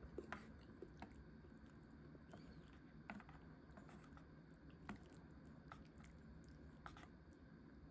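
Faint eating sounds: quiet chewing with a few scattered small clicks over quiet room tone.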